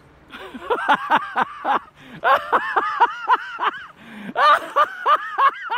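A person laughing hard in quick, high-pitched bursts of "ha-ha-ha", in three runs with short breaks for breath between them.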